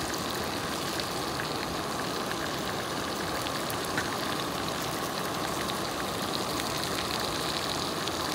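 Steady hiss of a lit backpacking propane canister stove with trout frying in the pan on it, and a few light clicks of a metal fork against the pan, about a second in and again about four seconds in.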